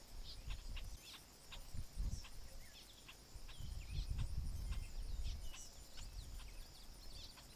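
Outdoor ambience: many short bird chirps over a steady high insect drone, with irregular low rumbling on the microphone.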